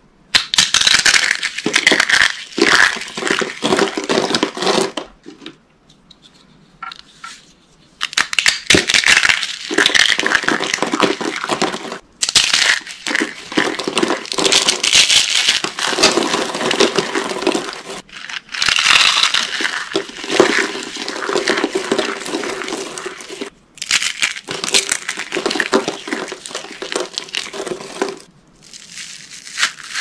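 Dry soap curls, chips and shavings being squeezed and crushed in the hands, a dense crackling crunch in spells of a few seconds each. There is a quieter pause about five to eight seconds in.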